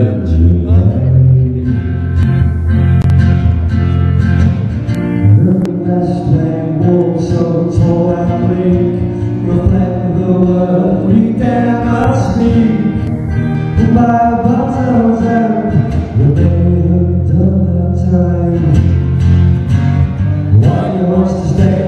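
Acoustic guitar strummed live with a man singing over it, one performer at a microphone.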